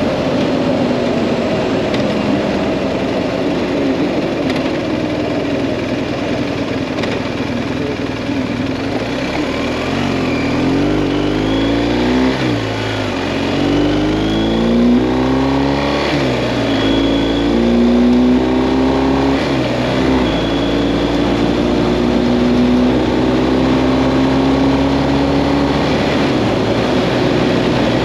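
BMW GS Adventure motorcycle engine running on the move, with wind rush. The engine note sinks slowly at first, rises and falls through a series of gear changes in the middle, then holds steady at cruise near the end.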